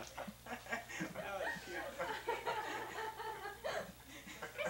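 People laughing and chattering, the voices coming and going, over a steady low hum.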